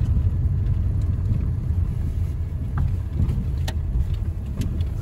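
Car running at low speed over a rough road, heard from inside the cabin: a steady low rumble of engine and tyres, with a couple of sharp clicks in the second half.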